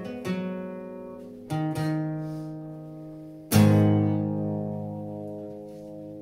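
Acoustic guitar chords strummed to close a song: a few strums in the first two seconds, then a final, loudest chord about three and a half seconds in, left to ring out and slowly fade.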